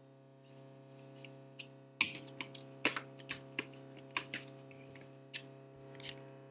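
Irregular light taps and clicks of hands pressing paper cutouts onto a plate on a wooden table, starting about two seconds in. Under them runs the steady hum of a refrigerator.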